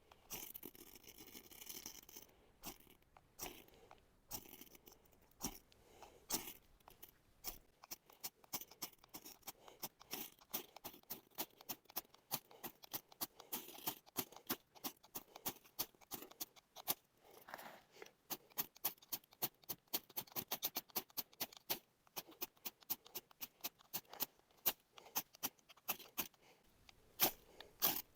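Flint insert struck again and again along a knife blade to throw sparks for lighting a fire: short, sharp scrapes, a few a second at first, coming faster, several a second, from about eight seconds in.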